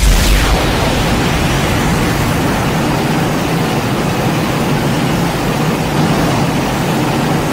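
A loud, steady rushing noise that begins suddenly and holds level, with no clear pitch or rhythm: a sound effect of roaring or hissing noise.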